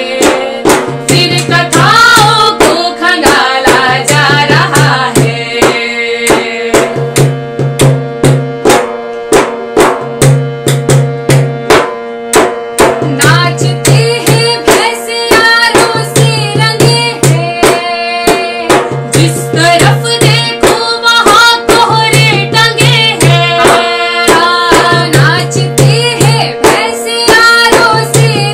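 Women singing a Hindi rebel song in unison to a hand-beaten drum, with quick steady strokes. A steady drone is held underneath, and a deep beat repeats about once a second.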